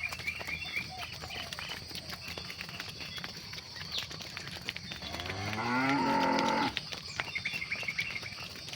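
A cow moos once, about five seconds in: one long call that rises in pitch and stops abruptly. Faint chirping and a steady high hiss run behind it.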